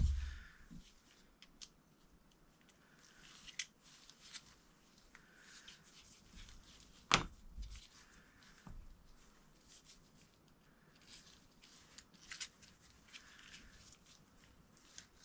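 Small metallic clicks and taps of an Astra .38 revolver's cylinder and a thin steel rod being handled and fitted together during reassembly, with a sharp knock at the start and another about seven seconds in.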